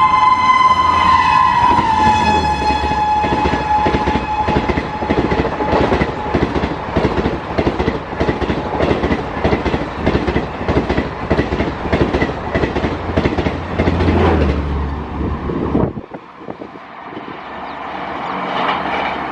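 High-speed express train passing at full speed. Its horn sounds and drops in pitch as it goes by about two seconds in. Then comes a fast, steady clatter of wheels over the rail joints, which stops abruptly near the end and leaves a quieter rush of noise.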